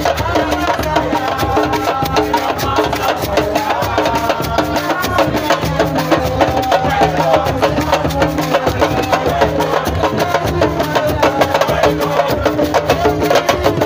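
Fast, dense drumming with many sharp strikes, with voices singing along over it.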